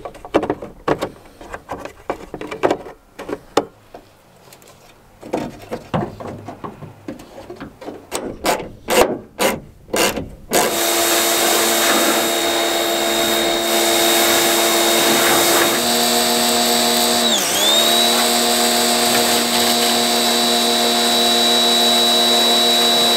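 Electric pressure washer running and spraying water: a loud steady motor whine over the hiss of the spray, its pitch stepping and then dipping briefly and recovering about two-thirds of the way through. Before it, about ten seconds of scattered plastic clicks and knocks as a truck tail light assembly is handled and fitted.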